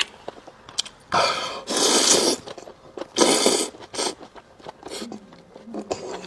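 Close-miked eating of spicy rice noodles and beef intestine: three loud slurps, about a second in, just after, and at three seconds, with soft chewing clicks between them.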